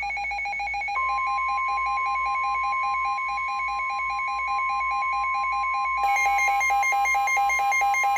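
Emergency Alert System alert tones: a rapidly pulsing electronic beep with a steady single-pitch alarm tone joining about a second in, and more fast-pulsing tones layering on about six seconds in, ahead of a severe thunderstorm warning.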